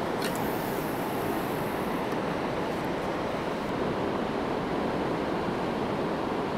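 Steady rush of a large, fast-flowing river running over rapids.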